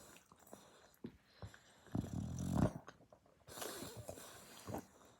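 Dog snoring loudly in its sleep: one loud, low snore about two seconds in, then a hissing breath out about a second later, with small snuffles and clicks between.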